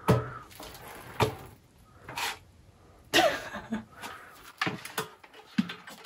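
A series of short knocks and clunks, with some rustling, as tools and gear are handled and set down on a block ledge.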